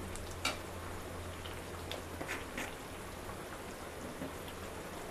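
Fish curry in a thin mustard gravy simmering in a frying pan, bubbling with scattered small pops and ticks over a steady low hum.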